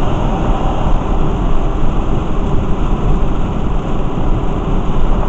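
Steady road noise heard from inside a car driving on a rain-soaked freeway: tyres running on wet pavement, with rain and spray on the car.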